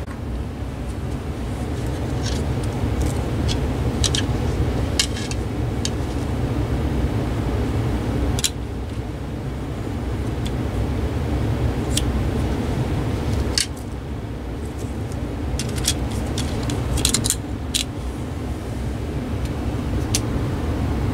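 Plastic cordless-phone handset casings being handled, giving scattered light clicks and taps, with a cluster of quick clicks near the end, over a steady low rumble.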